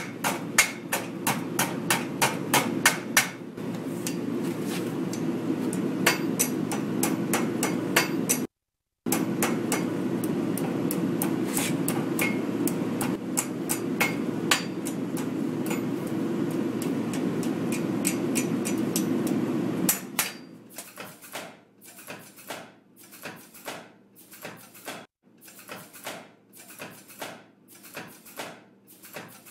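Hand hammer forging a red-hot steel bar on an anvil: a quick run of ringing blows, then more spaced strikes over a steady low drone. In the last third the drone stops and lighter, evenly spaced blows go on.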